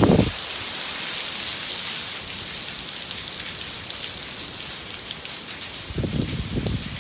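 Heavy wind-driven hurricane rain pouring steadily in a constant hiss. A louder low rumble comes right at the start and again about six seconds in.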